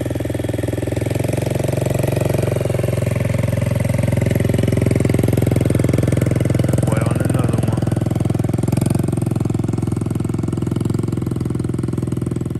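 Pocket bike's small gas engine running steadily as the bike is ridden slowly off, its sound a little louder around the middle.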